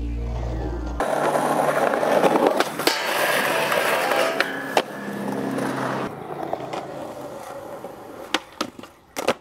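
Skateboard wheels rolling on concrete and the trucks grinding along a metal rail, then a concrete curb, with sharp clacks of the board popping and landing, several of them near the end. Background music with a heavy bass plays for about the first second, then cuts out.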